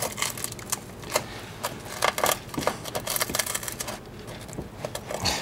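Irregular clicks, taps and short scratches of rusted sheet metal and flaking paint being picked at and scraped, over a faint steady hum.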